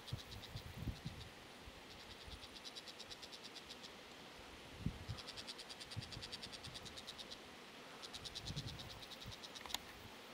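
Insects trilling: fast, evenly pulsed high-pitched buzzes in repeated bouts of two to three seconds with short pauses between. A few soft low thumps sound under the trilling.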